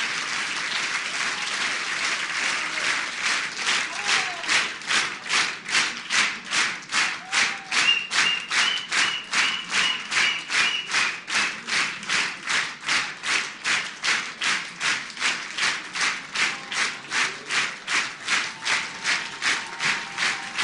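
Audience applause that settles into rhythmic clapping in unison, about two and a half claps a second, from about three seconds in.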